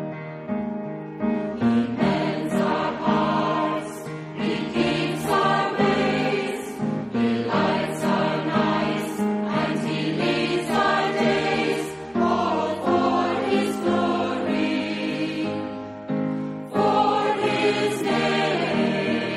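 Church choir singing a hymn, with musical accompaniment under the voices.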